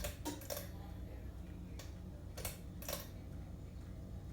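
Hunter Waldon ceiling fan running on low speed with a steady low motor hum and a few light clicks, which the owner puts down to a bad capacitor.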